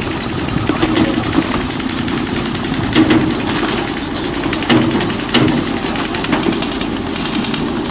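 Six-wheel army truck's engine running steadily as the truck creeps along, with a few sharp clicks over it.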